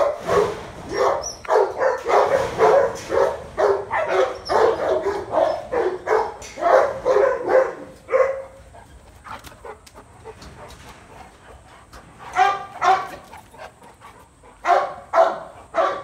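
Dog barking repeatedly: a fast run of barks for about eight seconds, then a few more barks in two short clusters near the end.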